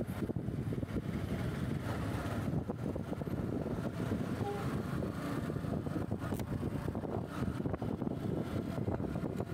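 Wind buffeting the microphone over steady road and vehicle noise while riding in traffic.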